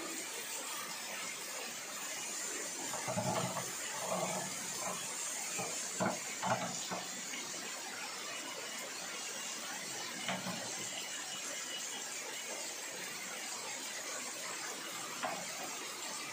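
Torrential rain falling steadily as an even hiss, with a few sharper taps about six and ten seconds in.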